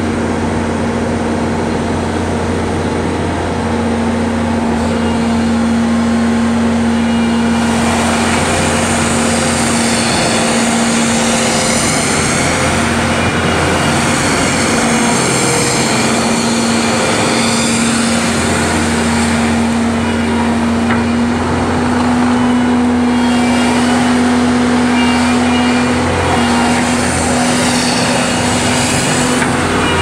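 2014 Bobcat T870 compact track loader's diesel engine running at a steady speed with an even hum. From about eight seconds in, a broad hissing and grinding noise joins in and swells and eases as the machine drives and turns on its rubber tracks.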